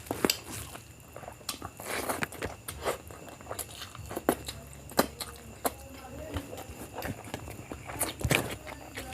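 Close-miked eating sounds of a person chewing mouthfuls of biryani, with irregular wet smacks and clicks of the mouth.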